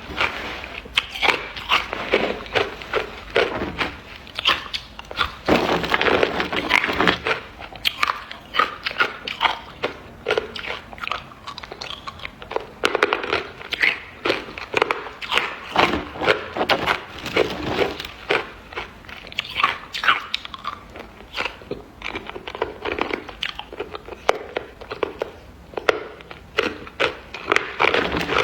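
Close-up crunching of ice being bitten and chewed, a rapid irregular run of sharp cracks and crunches.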